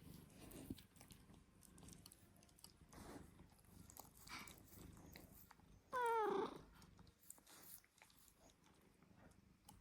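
A cat gives one loud, wavering meow about six seconds in, falling in pitch at its end, amid faint scuffling and clicking sounds.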